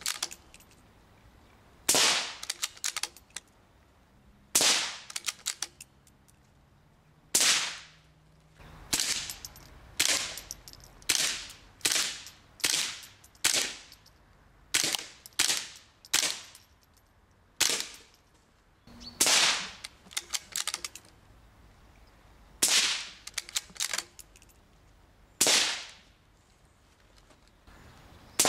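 Small-calibre rimfire rifle shots: some seventeen sharp cracks at an uneven pace, each followed by a few fainter cracks, with a quick run of shots less than a second apart midway.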